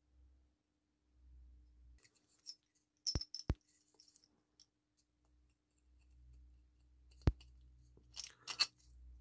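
Faint handling sounds of a studded aluminium base plate and a 3D-printed engine head: a few sharp light clicks, then a brief scuffle of rubbing and clicking about eight seconds in as the head is pressed onto the plate.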